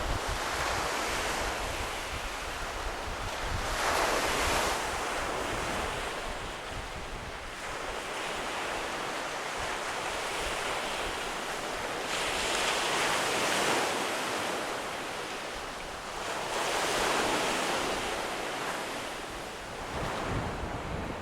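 Waves breaking on a shingle beach in a strong wind, the wash swelling and fading every few seconds, with wind buffeting the microphone.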